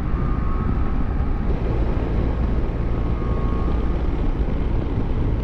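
BMW F700GS parallel-twin motorcycle at cruising speed: a steady rumble of wind rushing over the microphone mixed with engine and road noise. A faint steady high whine comes and goes.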